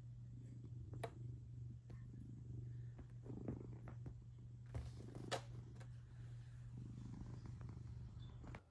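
Domestic cat purring steadily, with a couple of light taps from handling; the purr stops abruptly just before the end.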